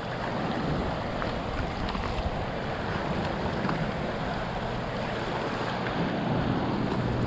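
Steady rushing of fast, choppy river water below a dam outflow, mixed with wind buffeting the microphone.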